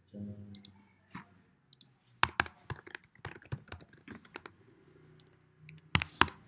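Keystrokes on a computer keyboard, typed in quick runs of sharp clicks. A few harder key strikes come near the end.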